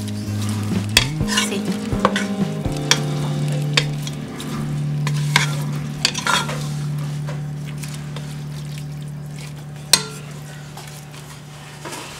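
Wooden spatula stirring pork pieces in a nonstick stockpot on high heat, scraping and clicking against the pot while the meat sizzles. A sharp knock of the spatula on the pot about ten seconds in; the stirring eases off near the end.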